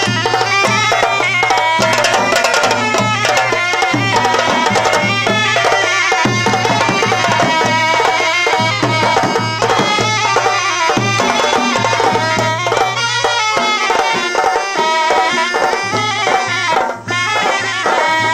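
Gilgit-Baltistan folk dance music: a steady drum beat under a reedy wind-instrument melody, with a short break near the end.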